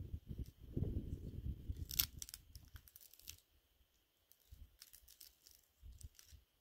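Dry twigs crackling and snapping as they are handled at a clay hearth, in two short clusters of sharp crackles. A low rumbling noise comes before them and fades about two seconds in.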